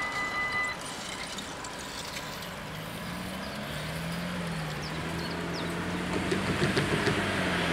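Level-crossing warning bells ringing, then cutting off suddenly about a second in as the barriers finish rising. Road traffic follows: a car engine approaches and grows louder near the end.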